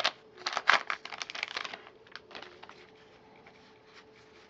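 Plastic wrapper of a baseball card pack crinkling as it is torn open and pulled off, loud for about the first second and a half. Then only faint ticks and rustles as the cards are handled.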